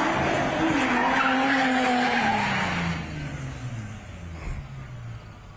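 Stunt car engine revving high with tyres squealing in a spin, then the revs fall away steadily and the tyre noise dies out about three seconds in.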